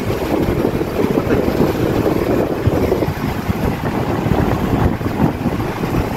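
Wind buffeting the phone's microphone: a loud, uneven low rumble that flutters without any steady pitch.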